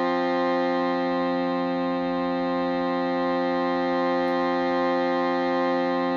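Shruti box and alchemical crystal singing bowl sounding together as one steady, unchanging drone of several held notes.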